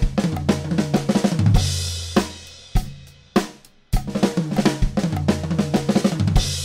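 Drum kit playing a fast snare fill of thirty-second notes mixed with bass drum strokes, ending on a crash cymbal about a second and a half in. After three evenly spaced beats the same fill is played again and closes on a crash that rings on near the end.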